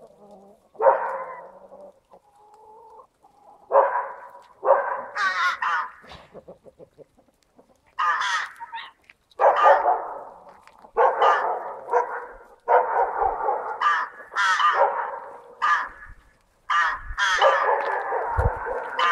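Domestic hens and a hooded crow calling in a poultry yard: a long series of harsh calls, most about a second long, with short gaps between them.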